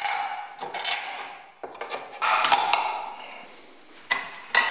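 The sheet-metal lid of an oil tin being cut and pried open with a chisel, then bent back with pliers. Several sharp tinny clanks, some left ringing, with metal scraping between them.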